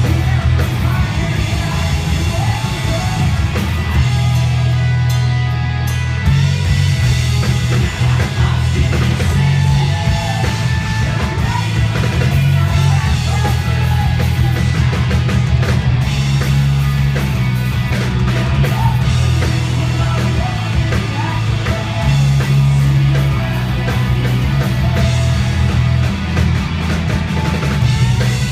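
Punk rock band playing live: electric guitars, bass and a drum kit, with sung vocals. Loud and continuous, with a heavy low end.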